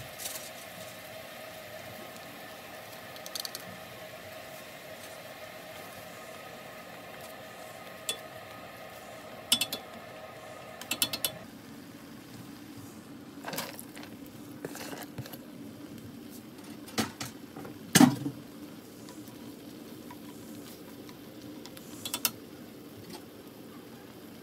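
Utensils and dishes clinking and knocking against a pot of simmering soup, about nine separate sharp knocks spread out, the loudest about 18 seconds in, over a steady hum that drops in pitch about halfway through.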